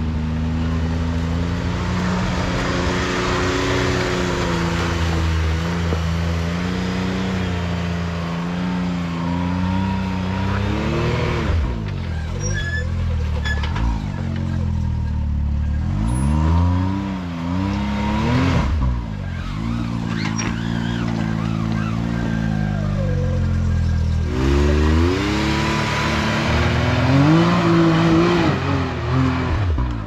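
Can-Am Maverick X3 Turbo side-by-side's turbocharged three-cylinder engine working under load up a steep rock ledge, running fairly steadily at first, then revving up and down again and again as the throttle is eased off and reapplied, with the highest revs near the end.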